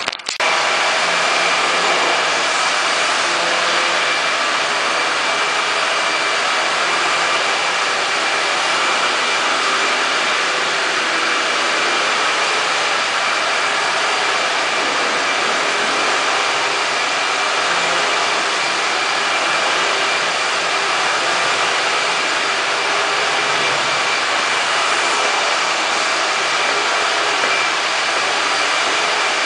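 Steady loud rushing noise with a thin high-pitched whine held through it. It cuts in suddenly at the start and stays level throughout.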